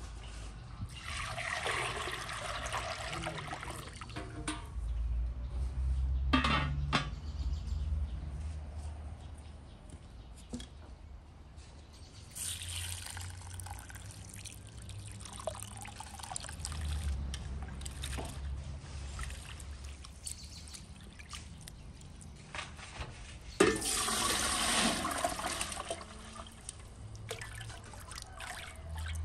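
Water being poured and splashing in three spells of about two seconds each: near the start, about midway and near the end, with small clicks in between.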